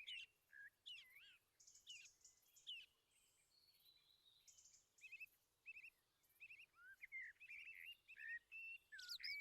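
Faint bird calls: scattered short chirps and whistled notes that slide up and down. There is a lull a few seconds in, then the calls come more often in the second half.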